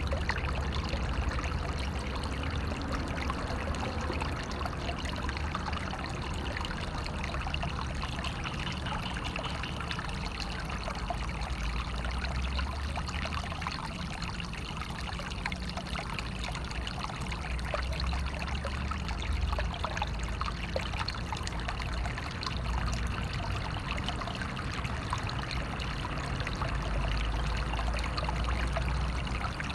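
Natural flowing water running and trickling steadily: a constant splashing hiss full of small droplet clicks, with a low rumble underneath.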